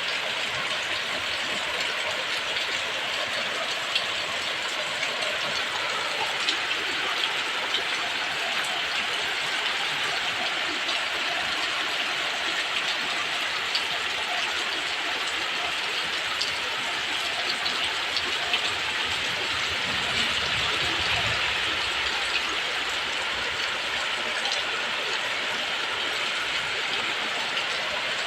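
Heavy tropical rain pouring steadily in strong wind: a dense, even hiss with scattered ticks of drops, swelling slightly about twenty seconds in.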